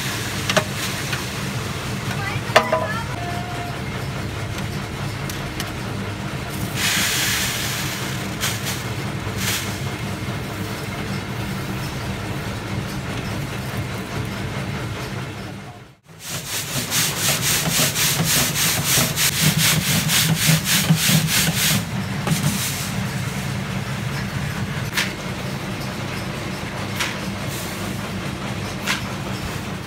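A motor-driven rotating drum runs with a steady low hum while loose metal screws inside it rub and rattle against the drum. About halfway through the sound drops out briefly, then comes back as a louder, fast, even rattle of screws being worked over a wire-mesh screen.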